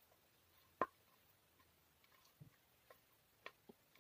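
Quiet eating sounds: a few scattered small clicks and taps while rice is eaten by hand from a ceramic plate, the sharpest about a second in.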